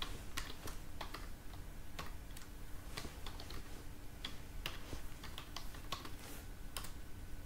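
Computer keyboard being typed on: irregular key clicks, a few a second, over a faint steady hum.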